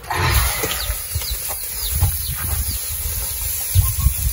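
Whole dorado (mahi-mahi) hissing and sizzling as it is laid on a hot grill grate over a strong fire, a steady hiss that comes in sharply at the start, with low rumbles underneath.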